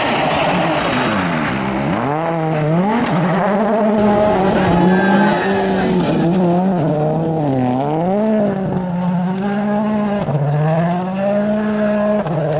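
Rally car engine revving hard, its pitch climbing and dropping again and again through gear changes and lifts for corners.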